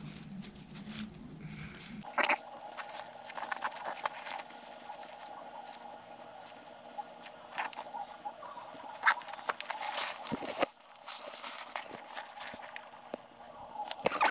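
Irregular rustling, scratching and small clicks of hands working nylon webbing and buckles through the backpack's gridded fabric.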